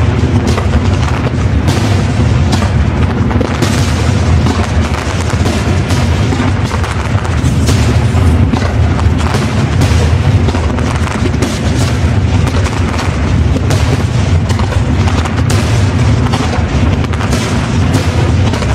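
Aerial firework shells bursting in quick succession, a dense, continuous run of booms and cracks without a pause.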